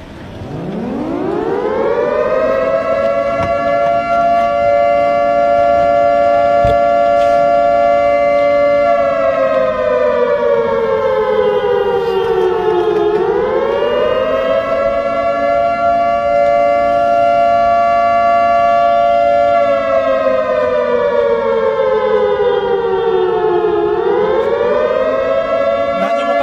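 Motor-driven civil-defense siren wailing a tsunami warning, sounding two notes at once. It winds up at the start and holds a steady pitch, then twice slides slowly down over about four seconds and winds back up to the same pitch.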